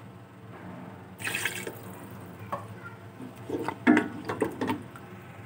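Beef stock (yakhni) splashing and sloshing in a cooking pot, with a short hissing splash about a second in and a few short clatters around four seconds in.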